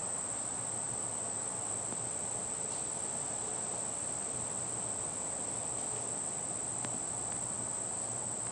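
Steady, high-pitched insect song that carries on without a break or change in level.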